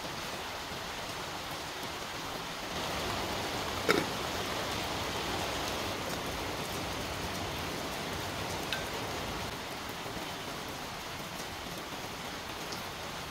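A pot of water boiling on a portable butane gas stove: a steady bubbling hiss, a little louder through the middle. A single sharp clink about four seconds in and a fainter one near the end.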